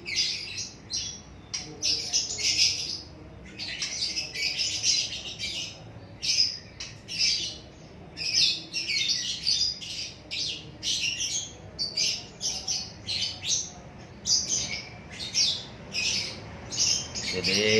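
A small pet bird squawking and screeching in a long run of harsh calls, about one to two a second. These are the distress cries of a bird held in the hand while a fatty lump is cut open without anaesthetic.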